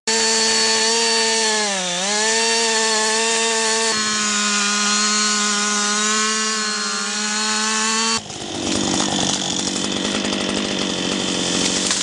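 Chainsaw running at high revs, its pitch dipping briefly about two seconds in. Two abrupt edits follow, the second, past the middle, switching to a rougher, noisier sawing sound.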